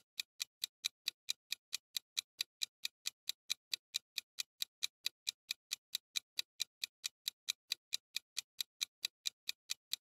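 Ticking-clock sound effect for a countdown timer: sharp, even ticks, about four or five a second, starting suddenly.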